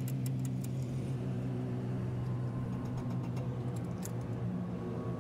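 A vehicle engine idling steadily underneath, with scattered light metallic clicks and clinks from a long T-bar socket wrench worked on the nuts of a heavy truck's wheel hub.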